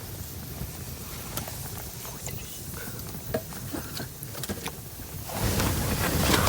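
Wood campfire crackling, with irregular sharp pops over a low rumble. About five seconds in, a louder, fuller rushing noise with more frequent clicks cuts in abruptly.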